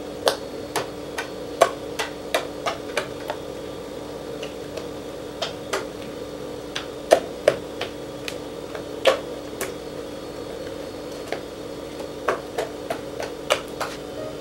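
Glue-and-shaving-foam slime being squeezed and poked by fingers, giving sharp sticky pops and clicks at irregular intervals, over a steady hum.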